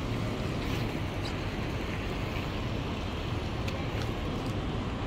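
Steady low rumble of outdoor background noise, with a few faint ticks scattered through it.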